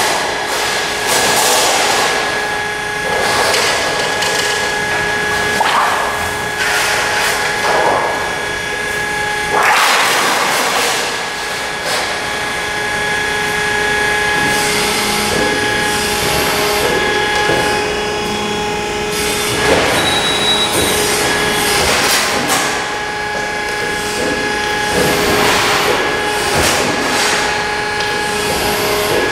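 Thalmann ZR long folder, a sheet-metal folding machine, at work. A steady hum runs throughout, with repeated swells of metallic rumbling and scraping every few seconds as long sheet metal is moved and folded on the machine.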